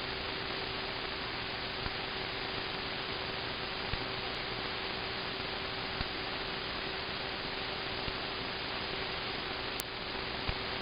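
Steady radio static from a software-defined radio receiver on an open channel with no signal: an even hiss with a faint steady tone under it and a few faint clicks.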